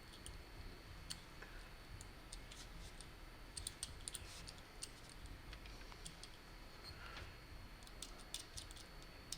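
Faint, scattered clicks and light taps of small metal lamp parts and hand tools being handled during assembly, bunched in two clusters, in the middle and near the end, over a faint steady high whine.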